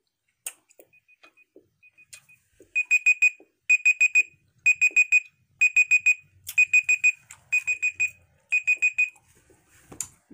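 Smartphone countdown timer alarm going off as the five-minute timer runs out: seven groups of four quick high beeps, about one group a second, stopping about nine seconds in when it is dismissed.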